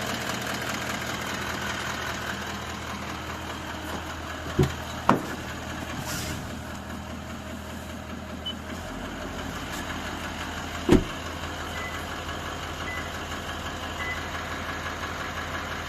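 Toyota 1VD-FTV V8 turbodiesel idling fully warm, with a knock the owner cannot pin down, one that appears or grows once the engine reaches operating temperature. Three sharp knocks stand out, two about half a second apart and a third some six seconds later. The engine's low note shifts about halfway through.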